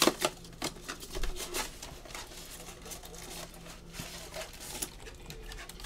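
Irregular light clicks and rustling of small objects being handled, with a sharp click at the start and a cluster of clicks about a second and a half in, over a low steady hum.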